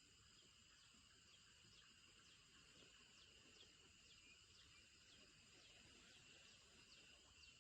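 Faint outdoor insect chorus: a steady high-pitched drone with a short falling chirp repeated two or three times a second.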